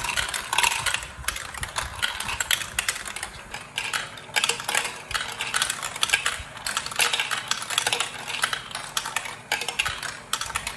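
Plastic balls rolling and clattering through a Duplo-style building-block marble run: a dense, continuous run of clicks and rattles as the balls hit the plastic track pieces and each other. A low hum sits underneath, from the motorised marble elevator.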